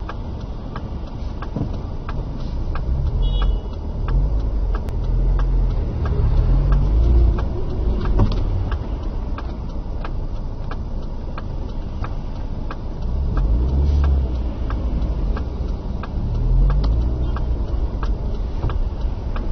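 Car engine and tyre noise heard from inside the cabin of a car driving on a wet road, the engine note rising and falling as it speeds up and slows. A steady ticking about twice a second runs throughout.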